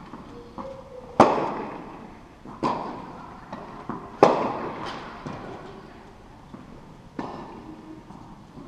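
Tennis balls struck by racquets in a rally on an indoor court, sharp pops that echo through the hall. Two loud hits come about a second in and about four seconds in, with two fainter hits later and small ball bounces between.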